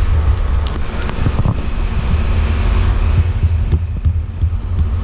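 Grain-bin machinery (roof augers moving corn) running with a steady low drone, mixed with wind buffeting the microphone.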